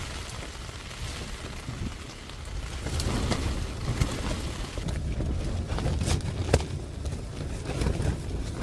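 Storm wind gusting against the car and rain hitting it, heard from inside: a low rumble that swells and eases, with scattered sharp taps.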